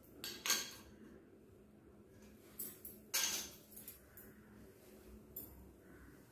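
Quiet, scattered clinks and knocks of small metal utensils being handled, about half a dozen separate strikes with the loudest about three seconds in.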